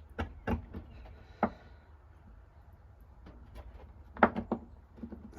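Light clicks and knocks from handling small parts and tools on a workbench while gluing knife handle scales: a few taps in the first second and a half, then a louder cluster of knocks a little after four seconds.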